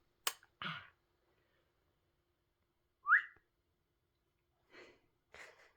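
A baby's short, high-pitched squeal that rises in pitch about three seconds in, among soft breathy sounds and a small click near the start.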